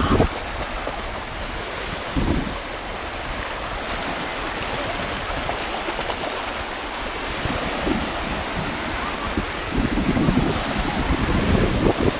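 Small sea waves washing in the shallows, with wind rumbling on the microphone in gusts: once about two seconds in, and more often near the end.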